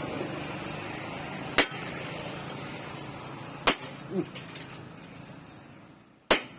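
Hammer blows on steel: three sharp, ringing strikes about two seconds apart, over a steady background noise that fades away toward the end.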